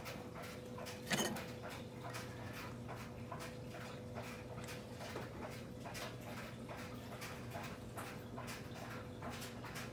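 Butter melting and foaming in a nonstick frying pan, sizzling with irregular small crackling pops over a steady hum. A single louder knock comes about a second in.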